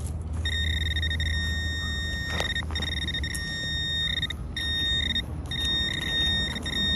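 Handheld metal-detecting pinpointer sounding a steady high-pitched alert tone as it is pushed through wood chips over a buried target, a small piece of wire, breaking off briefly twice.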